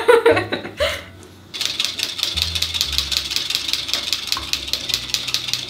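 Wire whisk beating a raw egg in a plastic cup: a fast, even clicking of the wires against the cup walls, starting about a second and a half in.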